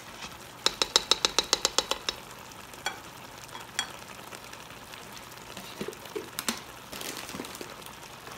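Chicken and tomato gravy sizzling in a pot, with a quick run of about a dozen clicks of a utensil against the pot about a second in as yogurt is stirred in, then a few scattered knocks.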